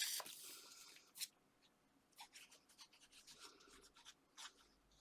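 Paper and card being handled on a craft table: a short scratchy rustle, a light tap about a second in, then faint rustling and small clicks.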